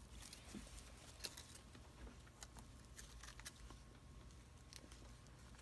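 Near silence with a few faint scattered light clicks and rustles from the doll and its clothes being handled.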